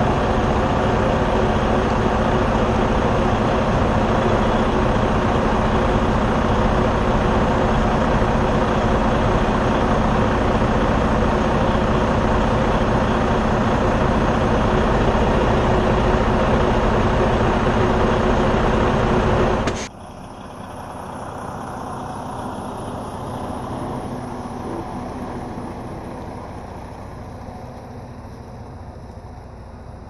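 2012 Freightliner Cascadia semi tractor's diesel engine running steadily and loud, close up, as the truck creeps along. About two-thirds of the way through it cuts off abruptly to a quieter, more distant run of the tractor pulling away, which slowly fades.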